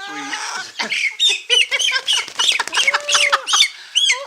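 A brooder of young chicks and guinea keets peeping, many short high peeps overlapping in quick succession, with one longer, lower call a little after halfway.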